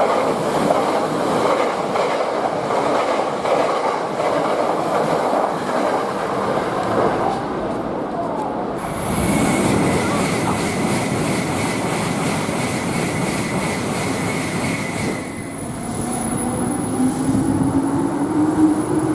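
Electric train running through a station: loud rolling wheel-on-rail noise for about the first nine seconds, then a steady high whine for several seconds. Near the end a rising whine sets in, like a train's motors speeding up.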